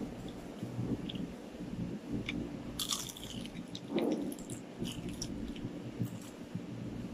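Biting into and chewing a lumpia (Filipino spring roll) close to the microphone, with a few sharp crackling bites about three seconds in.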